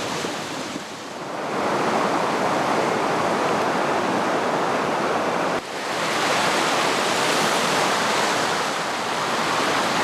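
Stream running high after recent rain, rushing over small waterfalls in a steady, fairly loud rush of water, with a sudden brief drop about five and a half seconds in.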